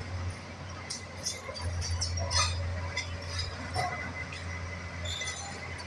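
Hitachi excavator's diesel engine running with a steady low hum, under scattered metallic clinks and clicks and one sharper knock about two and a half seconds in.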